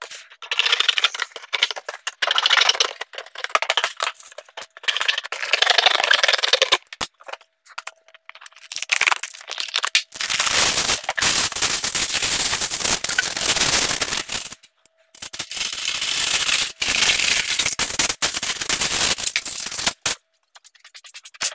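Scissors cutting through a cardboard box with dense crackling, then aluminum foil pulled off the roll, crumpled and pressed into the box. The foil crinkles loudly in two long stretches.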